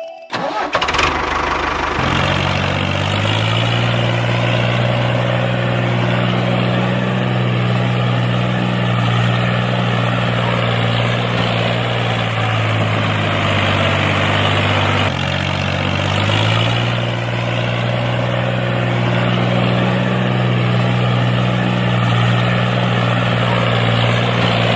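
Tractor engine sound running steadily at a low, even pitch. It settles in about two seconds in and briefly jumps and restarts about fifteen seconds in.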